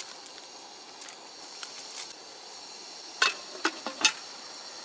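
Pot lid set down on a simmering hotpot, four quick clinks over about a second, near the end. Beneath them is a faint steady hiss from the camp stove burner and the simmering pot.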